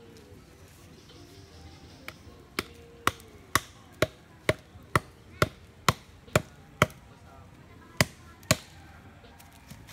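A wooden stake being hammered into the ground: about a dozen sharp, knocking blows on its top, roughly two a second, then a short pause and two more blows near the end.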